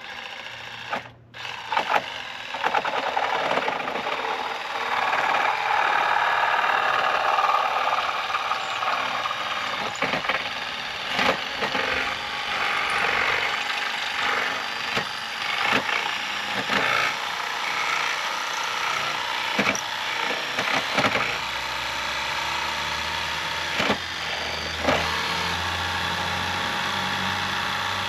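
Power tool cutting down a Packout mounting plate, a steady harsh noise broken by many sharp knocks, with a low hum joining after about twenty seconds.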